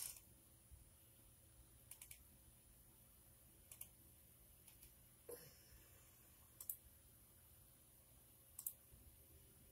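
Faint double clicks, about five of them spread one to two seconds apart, with a soft knock about five seconds in, over near-silent room tone.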